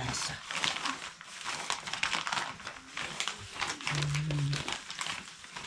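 Black plastic nursery pots crinkling and rustling as they are handled and filled by hand with loose compost and soil, in irregular bursts. A short low hum sounds about four seconds in.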